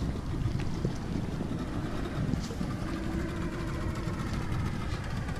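Motorboat engine droning steadily as a low rumble, with a faint hum held for a second or two in the middle.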